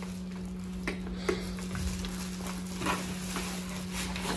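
Scattered clicks and rustles of a parcel's packaging being cut and opened by hand, over a steady low hum.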